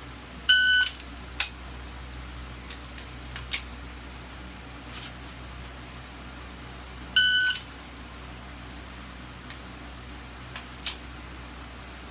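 Shot timer start beep, sounding twice about six and a half seconds apart, each followed within a few seconds by a few sharp clicks of a dry-fire pistol draw.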